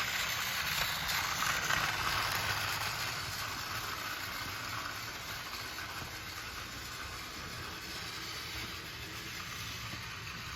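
Battery-powered Plarail toy train running on plastic track: a steady motor-and-wheel whirr that grows gradually fainter over the first half as the train runs away.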